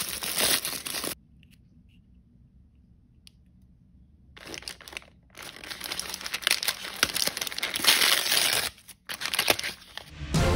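Crinkling and tearing of L.O.L. Surprise blind-bag packaging being opened by hand: tissue paper and crinkly plastic wrappers crumpled and torn open. It comes in a short burst, then about three seconds of near quiet, then a long stretch of dense crinkling with two brief pauses.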